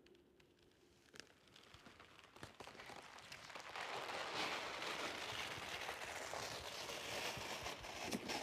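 Cardboard tear strip being ripped along a large box, a crackling, tearing noise full of small clicks that starts about a second in and grows louder and denser from about four seconds in.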